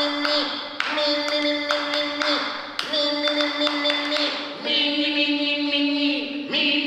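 A group of voices holds a steady sung drone, with whistling high overtones above it: overtone singing. The drone breaks off and starts again about every two seconds.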